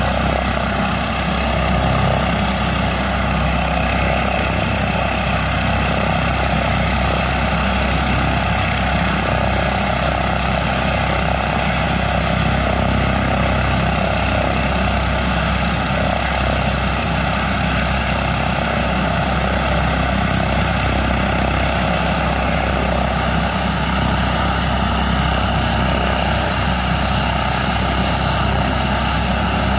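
Airbus H145 helicopter running on the ground with its main rotor turning. The twin turboshaft engines give a steady high whine over the rotor and engine noise, with no change in power.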